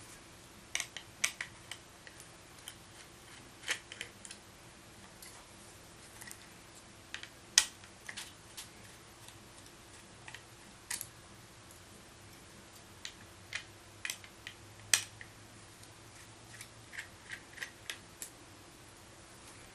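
Small screwdriver taking the screws out of a laptop hard drive's metal caddy: scattered light metallic clicks and ticks, irregular, with a few sharper clicks.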